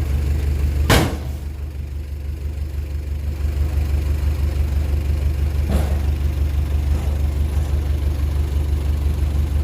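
Heavy diesel engine of earthmoving machinery running steadily with a deep rumble, with a sharp knock about a second in and a fainter one near six seconds.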